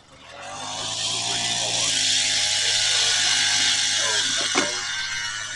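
A small motor winds up over about a second and then runs hard and steady, a low hum under a loud hiss, with one sharp click near the end.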